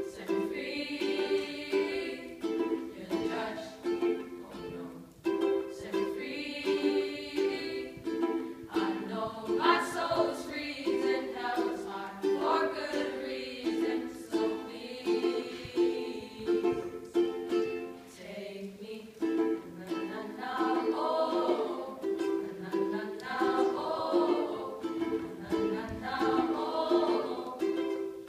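A ukulele strummed in a steady repeating chord pattern, with a small group of boys singing over it in stretches.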